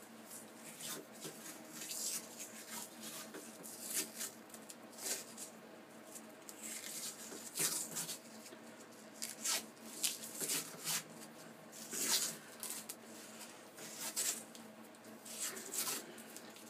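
Masking tape being peeled off its roll and wrapped around an antler knife handle: many short, irregular peeling sounds.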